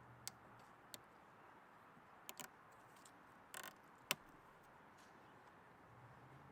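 A few small, sharp clicks and taps over near silence, the loudest about four seconds in: plastic cable clips being handled and snapped onto a trolling motor's power cable.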